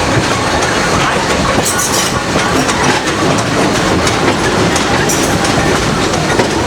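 Passenger train coach rolling along the track: a steady rumble of wheels on rail, with a few sharp clicks as the wheels cross rail joints.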